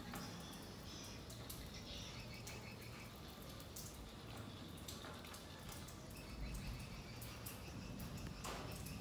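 Faint outdoor ambience: a steady high-pitched chirping chorus, clearer in the second half, with a few soft clicks and a low rumble underneath.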